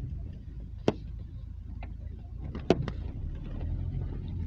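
Steady low rumble of a car driving, heard from inside, with two sharp knocks about one and three seconds in and a few fainter clicks.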